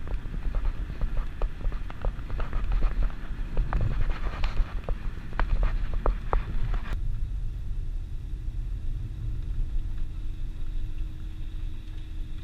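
Road noise inside a moving car's cabin: a low tyre and engine rumble with many sharp ticks and knocks for about the first seven seconds, then a smoother, steadier hum with a faint held tone.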